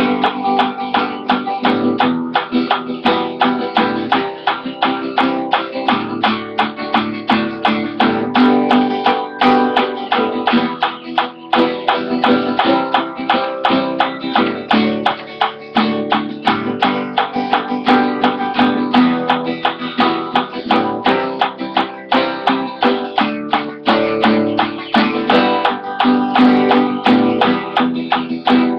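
Acoustic guitar strummed with a pick in a steady, even rhythm of chords, several strokes a second, varying slightly in force.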